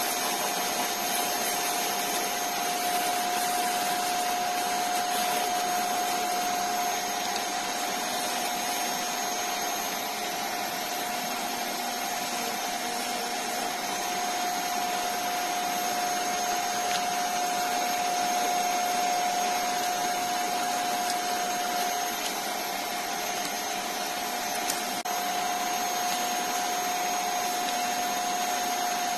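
Wood lathe running steadily with a constant whine while a spinning stabilized-wood handle is sanded and polished by hand, the sandpaper and cloth rubbing against the turning work.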